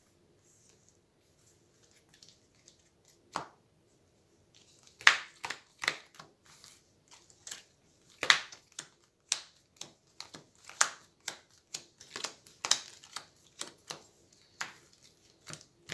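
Hero Realms playing cards being laid and snapped down onto the table one after another: a single tap a few seconds in, then from about five seconds a quick, irregular string of sharp card clicks and slaps.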